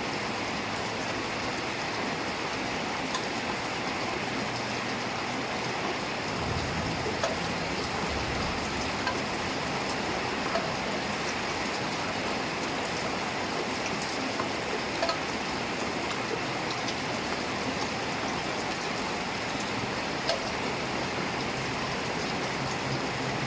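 Heavy rain falling steadily, with scattered sharper drop ticks and a faint low rumble for a few seconds near the middle.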